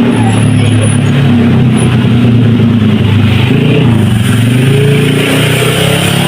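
Road traffic led by a heavy bus's diesel engine running with a steady low drone.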